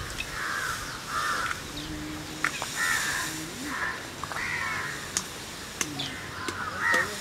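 Crows cawing over and over, a run of short harsh calls, with a few sharp clicks in between.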